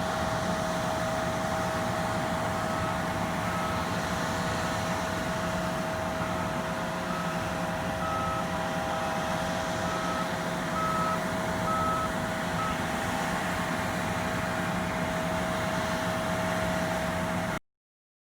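Harvest machinery running with a steady drone, and a high electronic beep that sounds on and off from about three seconds in until about two-thirds through. The sound cuts off suddenly near the end.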